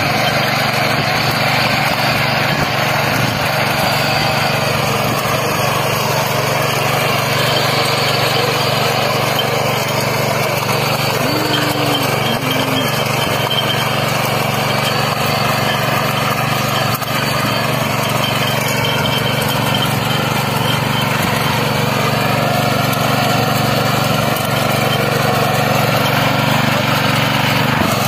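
Kisankraft KK-IC-212P power weeder's 7 hp four-stroke engine running steadily under load while its rotary tines till the soil.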